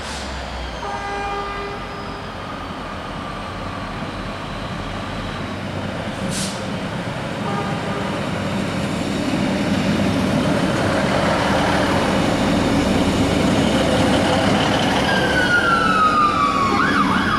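East Midlands Trains Class 156 Super Sprinter diesel multiple unit approaching and running slowly past, its diesel engines growing steadily louder as it nears. Short tones sound about a second in and again near eight seconds, and a high squeal falls in pitch near the end as it passes.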